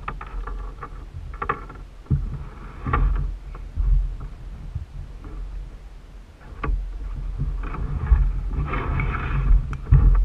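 Handling noise on a plastic kayak: low thumps and knocks carried through the hull, a few sharp clicks, and stretches of rubbing and rustling, with a loud knock just before the end.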